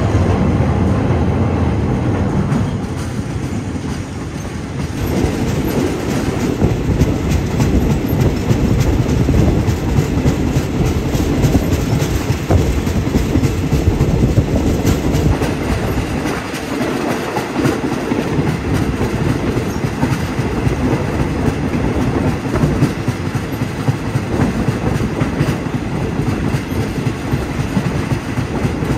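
Diesel-hauled ordinary passenger train running along the track, heard from aboard: a steady loud rolling noise with the clickety-clack of wheels over rail joints.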